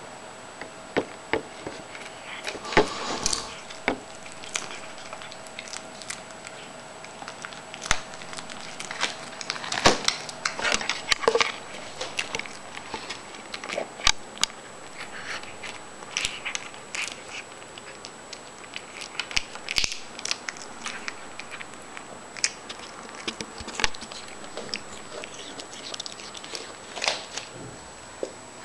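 Cats chewing and crunching dried sardine treats: irregular crisp crunches and bites, loudest about three seconds in and again around ten seconds in.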